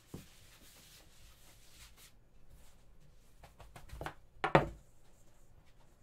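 Long wooden soba rolling pin rubbing and rolling over soba dough on a wooden board, with hands sliding along the pin. There are a few light taps, and a louder wooden knock about four and a half seconds in as the pin drops from the dough onto the board.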